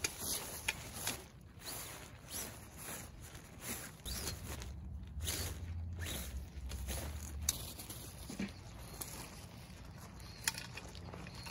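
Irregular rustling and handling noises with footsteps and a few sharp clicks. A low rumble runs for a few seconds in the middle.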